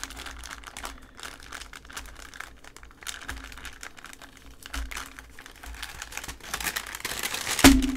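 Tissue-paper wrapping crinkling and rustling as it is handled, in small irregular crackles, with one sharp knock near the end.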